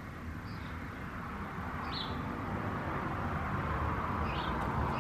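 Outdoor background: a steady low rumble that slowly grows louder, with a few short, high bird chirps.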